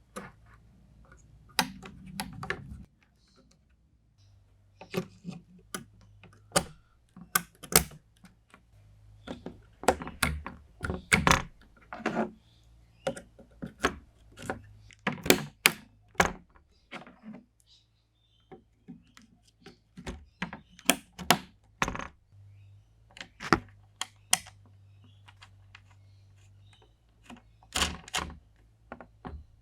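Irregular clicks, taps and knocks of computer parts being handled and fitted by hand during a PC build, some single and some in quick clusters.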